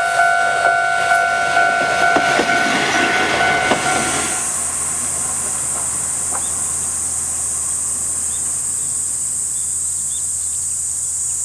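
A diesel railcar rolling on jointed track, its wheels clacking over the rail joints about twice a second, with a steady high tone above. About four seconds in this gives way to a steady high drone of insects, with a few short bird chirps.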